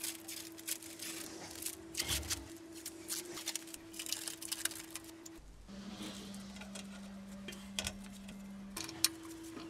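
Background music with long held notes that change pitch twice, over irregular sharp clicks and taps.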